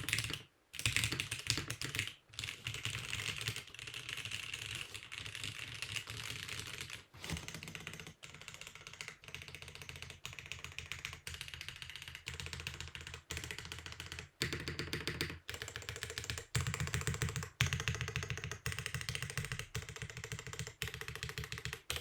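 Fast, continuous typing on a mechanical keyboard fitted with custom keycaps: a dense patter of key strokes broken by a few brief pauses.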